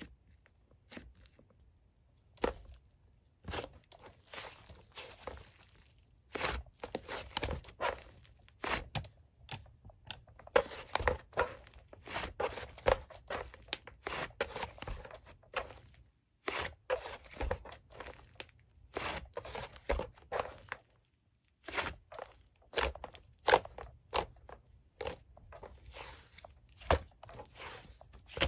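Hands squeezing and stretching slime, making runs of crackling, popping clicks that come in bursts with short pauses between.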